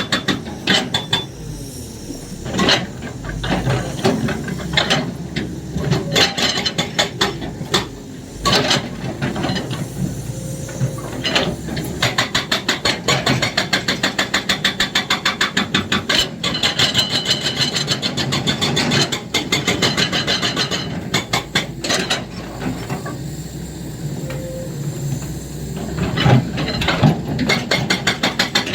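Excavator's hydraulic breaker hammering in long runs of rapid, evenly spaced blows, stopping briefly now and then, with the excavator's engine running underneath.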